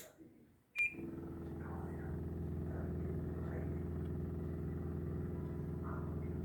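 Samsung air conditioner clicking and giving a short beep as it switches on, then a steady low electrical hum that holds without change. The hum is the unwanted noise the unit is faulted for.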